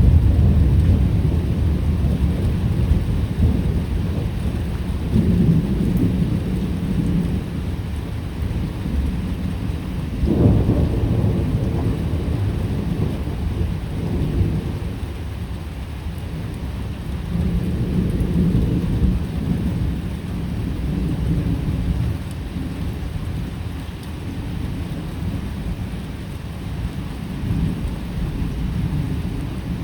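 Thunder rumbling over steady rain. The low rolls swell and fade several times, with a sudden sharper peal about ten seconds in.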